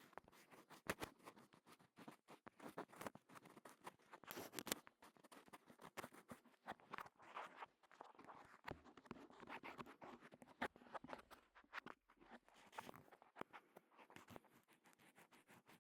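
Faint, close, irregular scratching and rubbing strokes with small clicks at the ear of a KU100 binaural dummy head microphone, in the manner of an ASMR ear-cleaning trigger.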